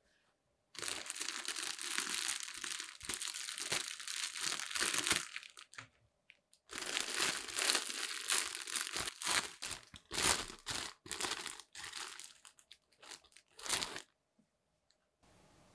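Thin clear plastic bread bag crinkling and rustling as hands untwist it and pull it open around a sliced loaf. The crinkling comes in two long spells with a short pause between and stops near the end.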